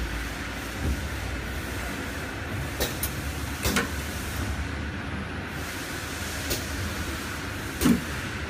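Rotary pouch packing machine running with a steady mechanical hum, broken by sharp clacks from its clamps and grippers: a few near the middle and a louder one near the end.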